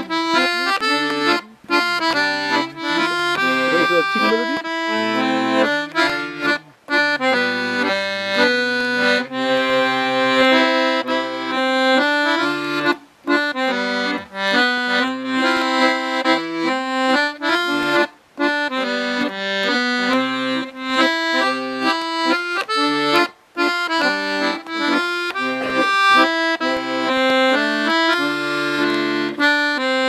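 Accordion playing a tune, a melody of held notes over bass notes, pausing briefly every five seconds or so between phrases.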